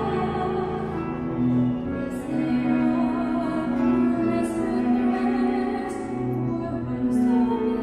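A woman singing a slow song with cello and piano accompaniment, her voice holding long notes over the bowed cello.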